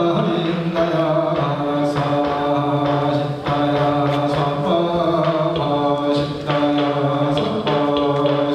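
Buddhist monks chanting in low voices, holding long steady notes that step to a new pitch every second or so.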